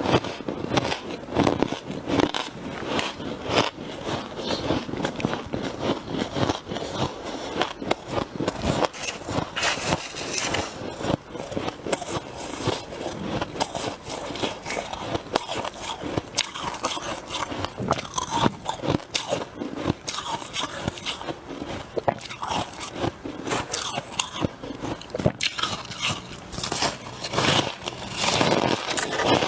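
Close-miked biting and chewing of freezer frost: dense, irregular squeaky crunches.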